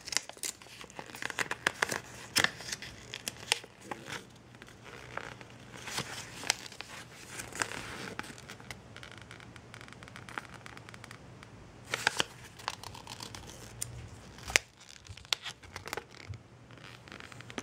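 A folded paper instruction manual being unfolded and its pages handled: crisp paper rustling and crinkling in irregular clusters of crackles, with a few sharper snaps.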